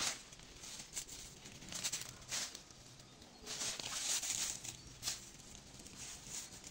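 Leaves and stems rustling and dry leaf litter crunching underfoot as a person pushes through dense undergrowth, in irregular bursts.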